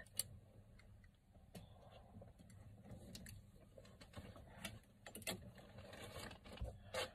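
Faint, scattered clicks of plastic clothes hangers knocking on a closet rod as they are hung up, with soft rustling of the clothes.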